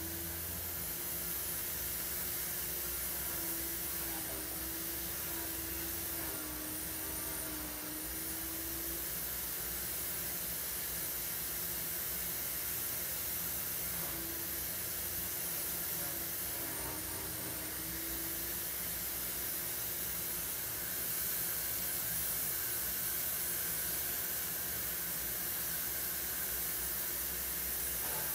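Steady background hiss of room noise, with a faint wavering hum that fades out after about nine seconds and returns briefly in the middle.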